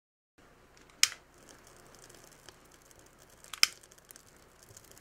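Wood fire burning, crackling faintly with small clicks, and the logs popping sharply twice, about a second in and again about two and a half seconds later.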